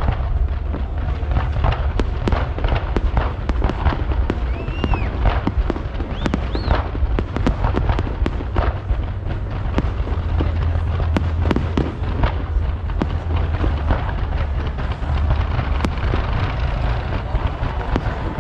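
Fireworks display: a continuous, dense run of bangs and crackles from aerial shells bursting, over a deep rumbling boom.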